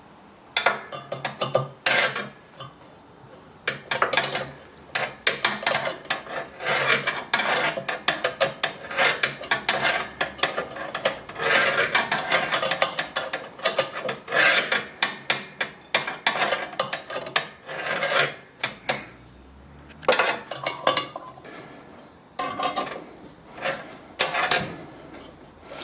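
Spanner tightening the nut on a mower blade bolt: many short metal scraping and clicking strokes in quick, uneven runs, with a few brief pauses.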